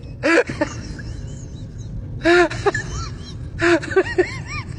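Infant crying in three loud wailing bursts, each pitch rising then falling and trailing into short sobbing catches, over the steady low rumble of a subway car in motion.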